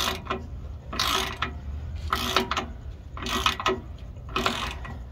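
Hand ratchet clicking in short runs about once a second, five strokes in all, as it turns the nut on the threaded rod of a bushing press tool. The tool is drawing a Meritor suspension pivot bushing into its bore.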